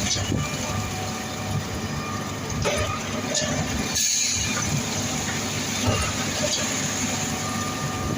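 Concrete pump and ready-mix truck running together while concrete is being pumped: a steady heavy engine and hydraulic drone, with a sharp knock about every three seconds from the pump's strokes.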